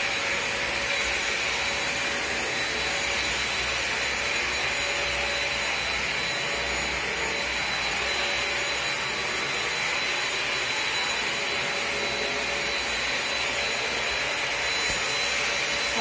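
Britânia BAS 1010B 1250 W stick vacuum cleaner running steadily with a high whine as its floor nozzle is pushed over tiles.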